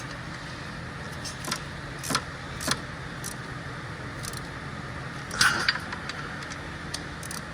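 Metal hand tools clicking and clinking against engine parts as bolts are worked, with a few sharp clicks about half a second apart and a louder, ringing metal knock about five seconds in, over a steady low hum.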